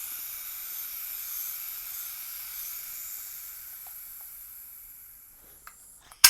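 System X NME paintball marker leaking air: a steady high hiss from the bolt and breech that slowly fades away over about five seconds, then a single sharp click near the end. The leak is taken to be worn ram O-rings, or at worst the poppet O-rings.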